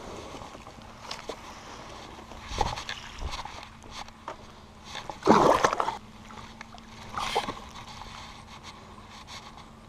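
Splashing and sloshing in shallow lake water at the shore as bass are let go from a mesh weigh-in bag, a few separate splashes with the loudest a little past halfway.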